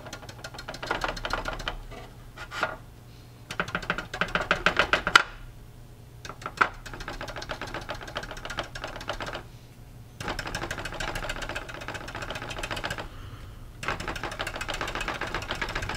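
Stiff round brush scrubbing rapidly across a plastic model hull, a fast dry ticking in about five bursts of a few seconds with short pauses between. The scrubbing is chipping the top coat of paint off a hairspray layer.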